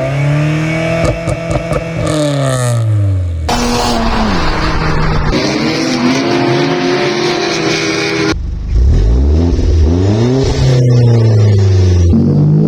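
Car engines revving up and falling back several times, in short clips that cut abruptly one into the next.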